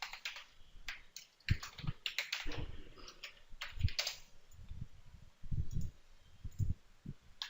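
Computer keyboard typing in short, irregular keystrokes, with a few clicks, while logging in.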